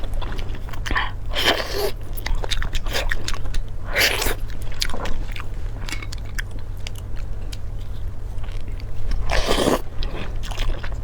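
Close-up eating: crunchy bites and chewing made of many small clicks, with three louder noisy bursts about a second and a half, four and nine and a half seconds in.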